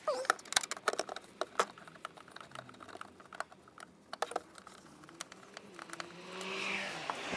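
Irregular light clicks and clinks of hand tools on metal screws while a bar in a car's engine bay is unbolted. A dog gives a short whimper right at the start, and a soft hiss rises near the end.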